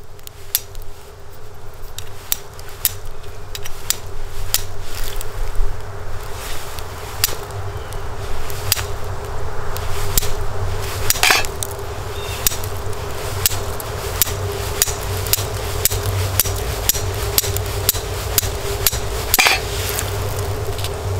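A rock struck again and again against the uncoated high-carbon steel spine of a Silky Gomboy 240 folding saw, used as a flint and steel to throw sparks into charred punk wood. The strikes are short, sharp and irregularly spaced.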